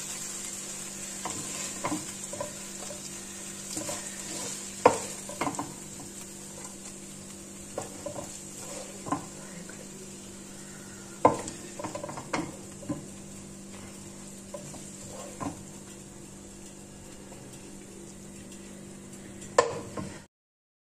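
Wooden spatula scraping and knocking in a nonstick kadai as cooked okra and onion are scooped out, with sharp taps against the pan every few seconds over a faint sizzle of the still-hot pan and a steady low hum. The sound cuts off suddenly just before the end.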